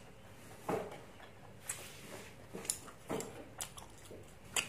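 A few short, wet smacks and clicks of someone chewing soft boiled pen-tube squid, spaced about a second apart.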